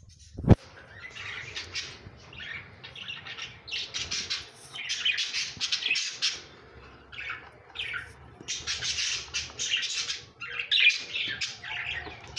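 Budgerigars in a nest box, chicks with their hen, giving runs of harsh, raspy chirps throughout. A sharp knock about half a second in is the loudest sound.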